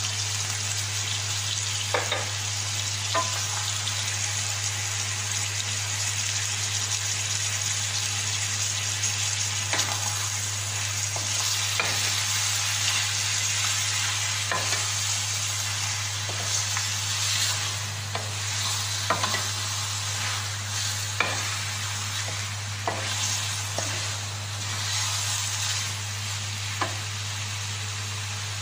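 Chicken pieces sizzling in hot oil in a wok, with a wooden spatula scraping and knocking against the pan every second or two as they are stirred. A steady low hum runs underneath.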